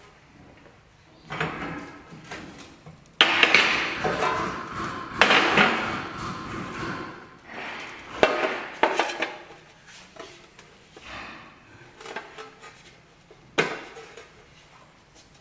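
Workshop clatter: irregular knocks and short rough scraping of tools and metal parts being handled, thickest a few seconds in.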